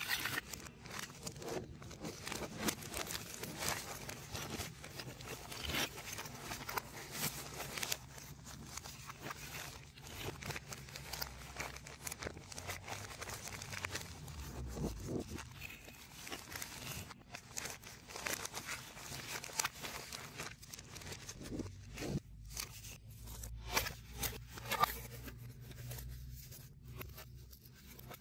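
Zip-lock plastic bag crinkling and rustling as foam-board 3D puzzle pieces and sheets are handled and pulled out of it, with many irregular light clicks and scrapes.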